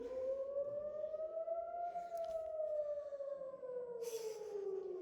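Civil-defence air-raid siren wailing in one slow cycle: its pitch rises for about two seconds, then falls back. It is the rocket-attack warning sounded in Israel during shelling from Lebanon.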